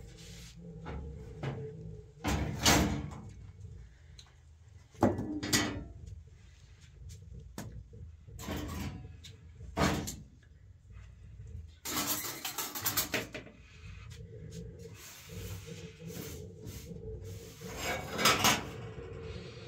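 Pots and pans clattering on a gas stove: scattered knocks and clanks of metal cookware, with a quick run of clicks about twelve seconds in.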